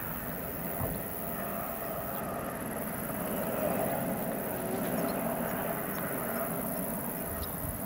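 Distant Eurocopter EC120 helicopter in flight: a steady drone.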